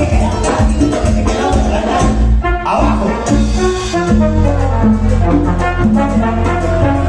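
Live Latin band playing: trumpet and trombone out front over congas and timbales with a driving beat.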